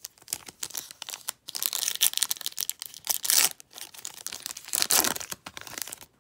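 Foil wrapper of a Yu-Gi-Oh! Speed Duel booster pack being crinkled and torn open by hand, a run of crackles and rips that is loudest from about one and a half to three and a half seconds in and again about five seconds in.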